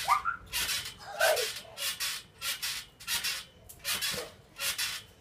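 Trampoline springs and mat rasping in a steady rhythm, one short burst with each bounce, a little under two a second. A short vocal sound near the start and again about a second in.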